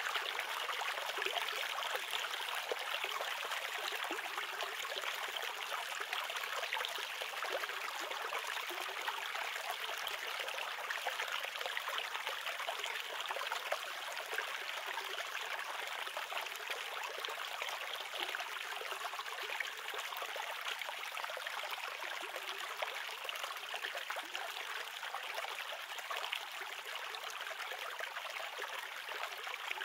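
Shallow rocky stream flowing, a steady rush and babble of water.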